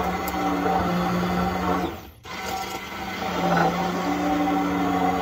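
Handheld immersion stick blender running in a glass mason jar, blending a thick blueberry, yogurt and milk smoothie. The motor hum cuts out briefly about two seconds in, then starts again.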